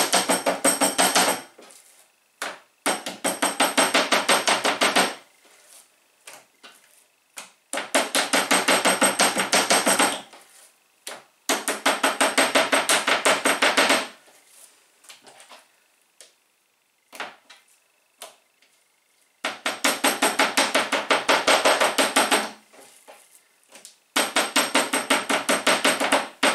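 Kitchen knife rapidly pounding slices of raw pork neck on a wooden cutting board, several strikes a second in bursts of two to three seconds with short pauses. The meat is being tenderised lightly with the knife, just enough to break up the membranes.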